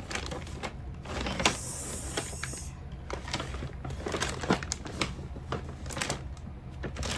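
Packaging being handled during an unboxing: scattered clicks, taps and crinkles, with a stretch of hissy rustling about a second in.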